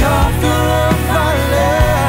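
Live worship band playing a song, with drum kit, bass, guitars and keyboard under a wavering sung melody line and a steady beat.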